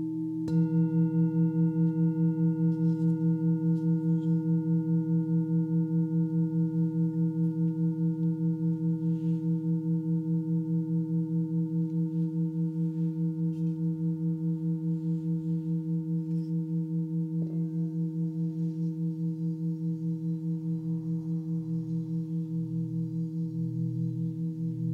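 Large Tibetan singing bowl struck once about half a second in, then ringing on with a deep, steady tone that wavers in a regular pulse. A faint knock comes partway through.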